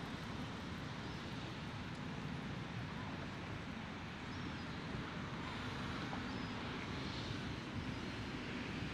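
Steady outdoor background noise: a low rumble with a wide hiss over it, unchanging throughout.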